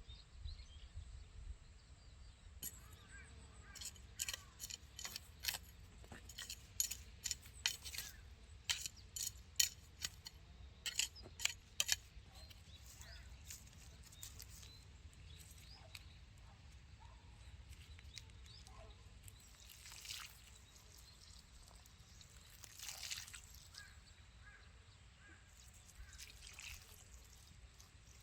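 An irregular run of sharp clicks and snaps, thickest from a few seconds in until about halfway through, then a few softer swishing sounds over a low steady hum.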